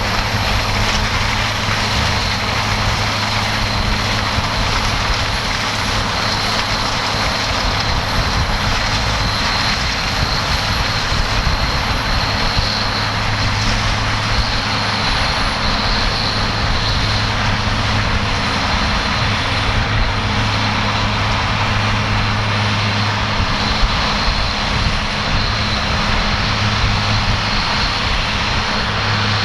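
New Holland CR 9070 combine harvester running steadily under load while threshing maize: a continuous deep drone with a high whine over it.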